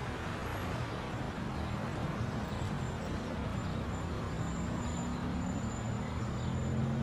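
Street traffic noise, steady throughout. Near the end a motorcycle engine comes closer and grows louder.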